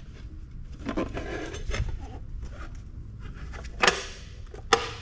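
Plastic and metal parts of a microfiche reader's housing being handled during teardown: light rattling and clicks, with two sharp knocks near the end.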